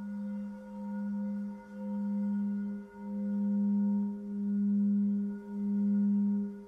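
A crystal singing bowl sustaining a steady low tone with faint higher overtones. Its volume swells and dips in slow, even waves about every second and a quarter, growing louder over the stretch.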